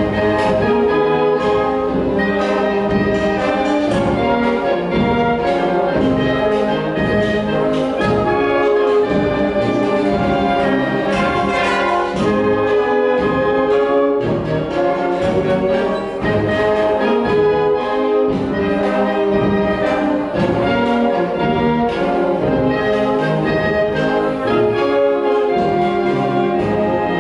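Amateur wind band playing a continuous, loud arrangement of show tunes, with trumpets, trombones and horns carrying the melody over the full ensemble.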